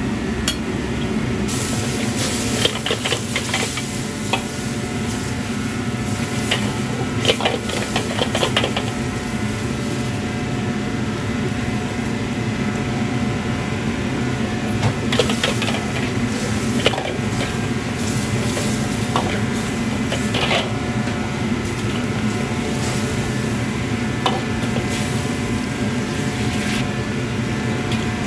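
Steady roar of a commercial wok burner and kitchen extraction, with scattered clinks and scrapes of a steel ladle against the wok and steel sauce containers.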